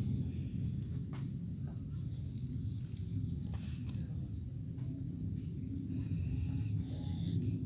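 Snoring: a low, continuous rumbling breath. A thin high chirp repeats about once a second in the background.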